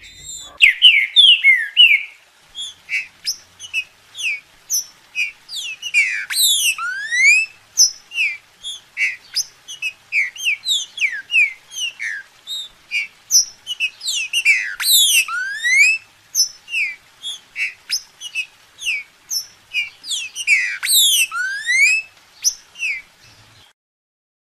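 Green-winged saltator (trinca-ferro) singing a long string of short, clear whistled notes. Three times the notes are broken by quick downward sweeps, each followed by a rising whistle. The song stops about a second before the end.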